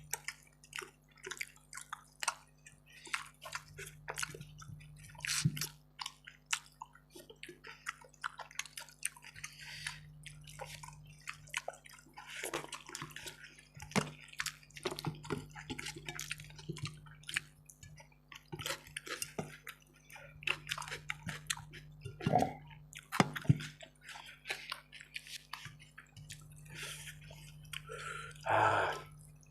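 Wet chewing and mouth smacking of someone eating rice and chicken curry: a dense run of small sticky clicks with a louder, longer sound near the end. A faint steady low hum runs underneath.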